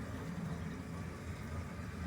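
Toilet cistern refilling after a flush: a steady, low rush of water through the pipes and tank.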